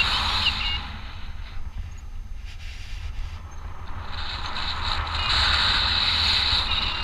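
Airflow rushing over the microphone of a paraglider pilot's action camera in flight: a steady low buffeting rumble with a hiss that eases about a second in and swells again from about four seconds.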